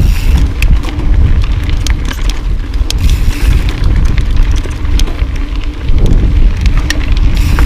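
Mountain bike riding fast over dirt and rocky singletrack: heavy wind rumble on the microphone, with many short sharp clicks and rattles from tyres on gravel and the bike's chain and frame.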